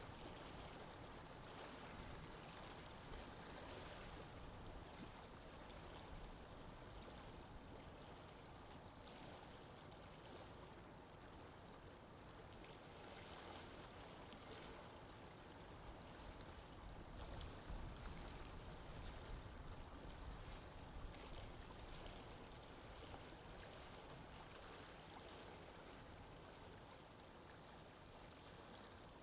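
Faint, steady sound of lake water moving gently, an even wash of water noise that swells a little in the middle.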